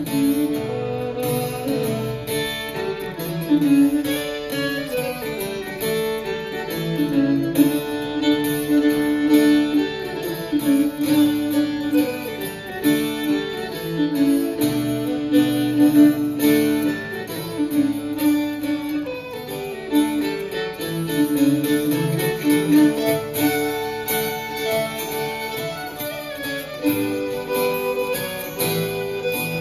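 Fiddle and guitar playing a contemporary Swedish folk tune, the fiddle carrying the melody over a strummed and plucked guitar accompaniment.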